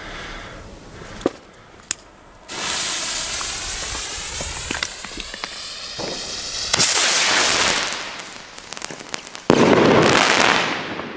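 Funke crackling-tail rocket launching about two and a half seconds in with a steady rushing hiss, its tail crackling as it climbs. It then bursts into loud crackling stars in two waves, the second and loudest near the end.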